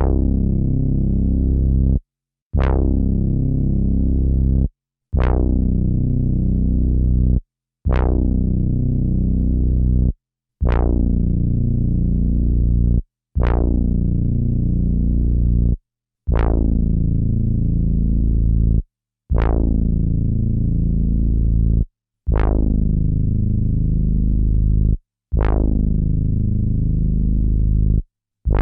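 Sampled synthesizer note played back over and over from an Akai MPC sampler. There are about ten sustained low notes, each with a bright attack that quickly dulls. Each is held for a couple of seconds, then cut off sharply, with a short silence before the next.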